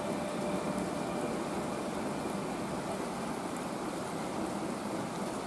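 Steady rain falling, an even hiss, with a faint steady tone underneath.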